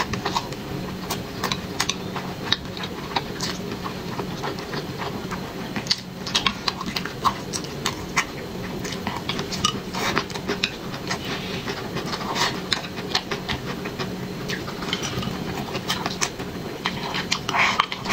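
Eating sounds: chewing and mouth noises with many short clicks and smacks at an uneven pace, over a steady low hum.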